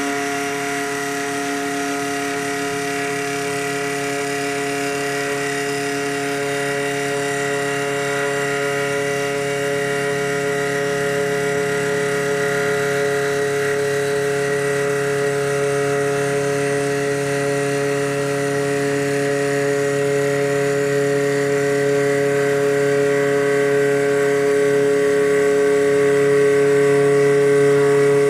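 Small CNC wood lathe running: a steady motor whine made of several fixed tones over a light hiss, slowly getting louder.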